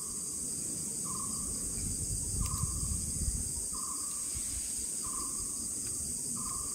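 Forest insects droning steadily at a high pitch, with a short, evenly repeated note sounding about every second and a half over a low background rumble.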